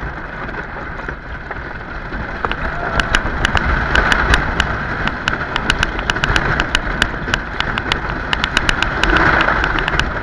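A wooden roller coaster train running at speed: wind rushing over the microphone over the train's rumble on the track. From about three seconds in until near the end, a fast run of sharp clacks rattles through.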